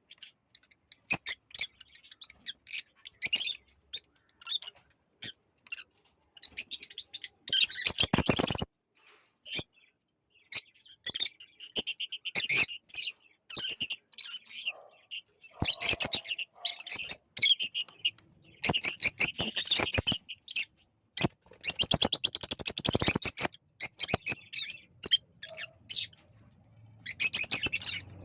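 Pet parrots chattering in shrill, rapid chirping bursts every few seconds, with short single chirps and clicks in between.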